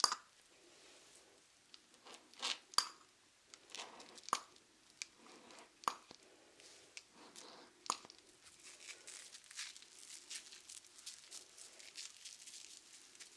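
Close-miked fingers brushing and tapping near the microphone, giving scattered sharp crackles and clicks, then a softer, steadier rustling in the last few seconds.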